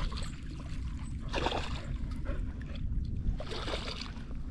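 Water splashing at the river's edge in two short bursts, about a second and a half in and again near the end, over a steady low rumble of wind on the microphone.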